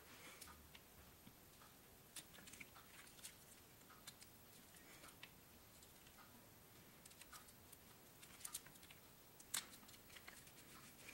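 Near silence with a few faint, scattered clicks and taps of fingers placing and pressing a small leather backing patch onto glue.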